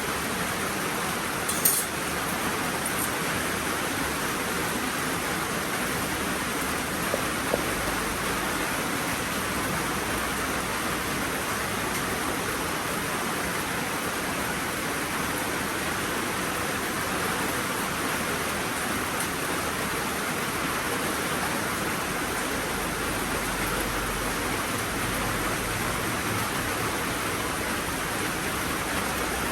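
Heavy rain falling steadily, with a few brief knocks near the start and about seven seconds in.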